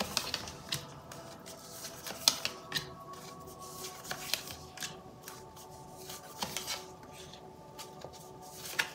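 Tarot cards being dealt and laid one at a time onto a wooden tabletop: a scattered series of short, light card slaps and rustles, about a dozen in all. Faint background music with steady held tones runs underneath.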